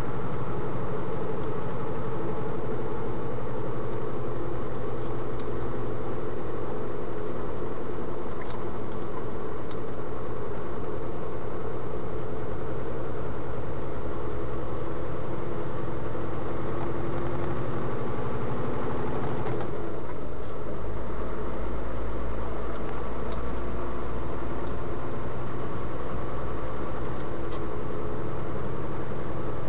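Vehicle engine and road noise heard through a dash cam while driving, steady with a running engine note. About twenty seconds in the sound changes and the low rumble grows stronger.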